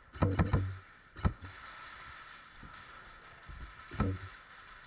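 Airsoft gunfire: three short bursts of sharp snapping clicks with a low whir under them, near the start, just over a second in, and about four seconds in.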